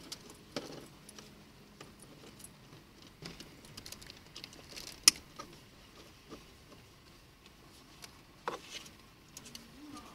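A car seat belt being pulled and fed through a child car seat's belt guide: rustling of the webbing against the seat with scattered light clicks, and a sharp metallic click about halfway through and another near the end.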